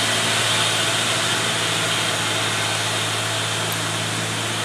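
Heavily loaded truck's diesel engine pulling steadily up a steep grade: a steady low engine drone that gradually gets a little quieter.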